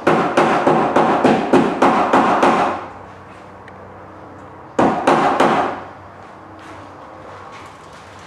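A rubber mallet tapping a clear plastic golf-cart windshield on its frame supports to shift it and line up the mounting holes. There is a quick run of about ten taps, roughly four a second, then a pause, three more taps, and a couple of fainter ones near the end.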